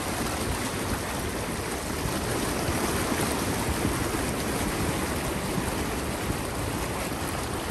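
Floodwater rushing and sloshing around a Jeep driving through a flooded road: a steady, even wash of water noise.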